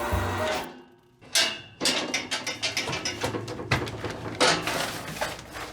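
A short stretch of background music cuts off, and after a brief gap a whoosh is heard. Then comes a busy run of small clicks, knocks and clatters, like plastic plugs and cords being handled.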